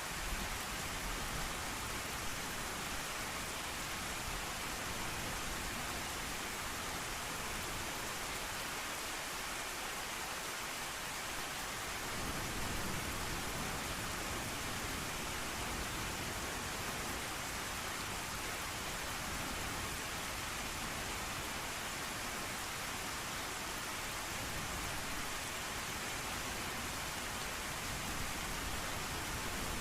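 Steady rain, an even hiss throughout, with a low thunder rumble beneath it that thins out for a few seconds and returns about twelve seconds in.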